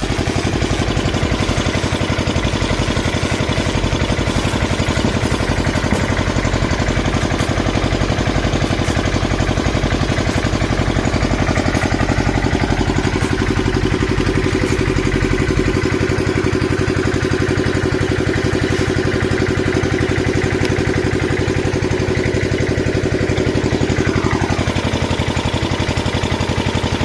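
An engine running steadily at one constant speed, most likely the engine driving the borewell drilling rig. A faint falling whistle-like glide sounds about 24 seconds in.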